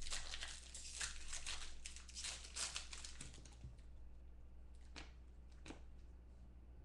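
Foil wrapper of a 2014 Select football card pack crinkling and tearing as it is opened, loudest in the first few seconds. After that the rustle fades to a few short crackles as the cards are handled.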